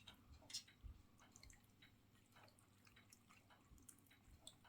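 Faint, irregular dripping from an electric cat water fountain, with small water ticks scattered through, one a little louder about half a second in.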